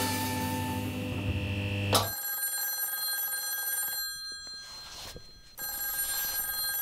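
Telephone bell ringing in bursts with short pauses between them. It follows the tail of theme music, which ends on a sharp final hit about two seconds in.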